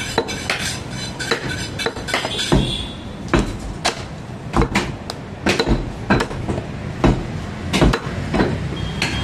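Heavy butcher's cleaver chopping beef into small pieces on a round wooden log block: a string of sharp chops with a dull thud in each, irregular, about one to two a second.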